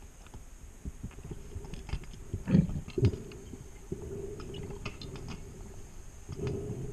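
Scuba diver's breathing through a regulator, heard underwater through a camera housing: a muffled, low rumble of exhaled bubbles with scattered clicks. Two louder knocks come about two and a half and three seconds in, and the rumble eases off, then returns near the end.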